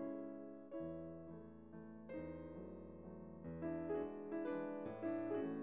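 Background piano music: an unhurried melody of notes and chords, each struck sharply and then fading away.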